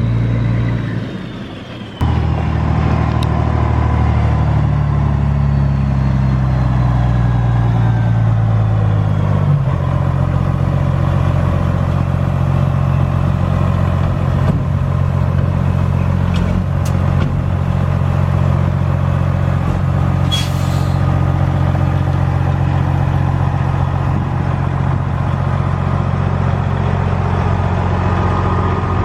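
A large vehicle engine running. After a sudden cut about two seconds in, its pitch climbs slowly for several seconds, then it holds a steady speed.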